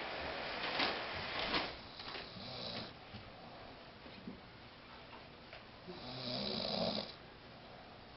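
A sleeping man snoring: a weaker snore about two and a half seconds in and a louder, longer one about six seconds in, with a few clicks early on.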